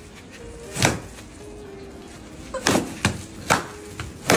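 Sharp whacks of a long stick striking, one about a second in, then four more in quick succession over the last two seconds.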